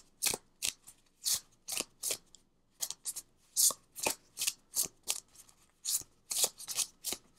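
A small stack of Tarot of a Moon Garden Major Arcana cards being shuffled by hand: a string of short, papery swishes, unevenly spaced at about two to three a second.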